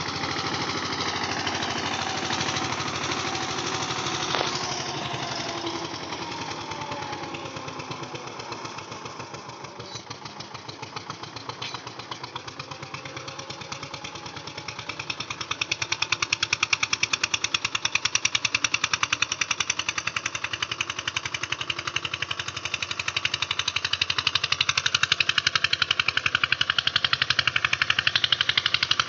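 Eicher tractor's diesel engine running with a rapid, steady firing beat, growing louder about halfway through.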